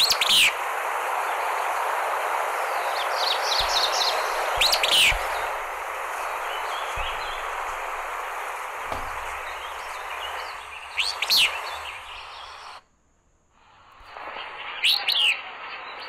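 Recorded Willow Flycatcher vocalizing: four short, sharp, high-pitched phrases, a few seconds apart, over a steady background hiss. The recording drops out briefly near the end, where one cut gives way to another.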